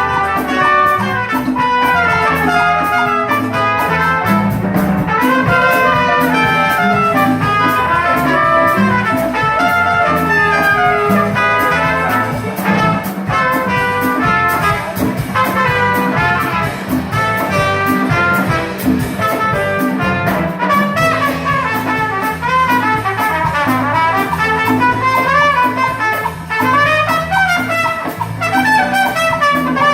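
Trumpet playing a jazz melody live over an accompaniment with a repeating bass line and a steady beat.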